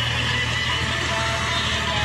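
Tractor engine running steadily under load while it pushes earth with a front blade, with music playing over it.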